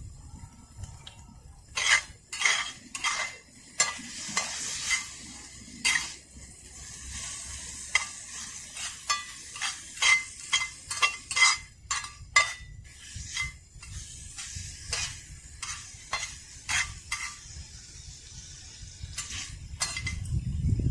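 A metal utensil stirring food in a pan, scraping and clinking against the metal in quick strokes that thin out after about two-thirds of the way, with food sizzling underneath.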